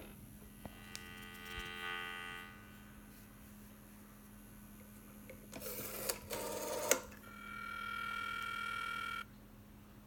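Rotary desk telephone in use. The handset clicks off the hook, and an electronic tone with several pitches sounds from the earpiece for about a second and a half. Later the dial is wound and whirs back with its clicks, followed by a steady electronic tone from the earpiece that cuts off suddenly about nine seconds in.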